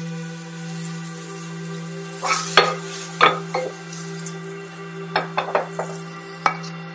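Vegetables sizzling in oil in a stainless steel frying pan as they are stirred with a spatula, which clinks against the pan several times a little over two seconds in and again around five to six seconds. The sizzle drops away near the end. Soft background music with a held tone runs underneath.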